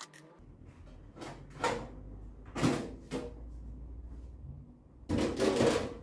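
Knocks and scrapes from handling a microwave oven being opened up, four separate knocks followed by a longer, louder rattling clatter near the end.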